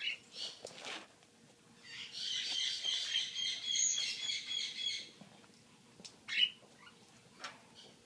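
African grey parrot calling: a couple of short chirps, then a high, rapid chattering trill lasting about three seconds, and one short squeak about six seconds in.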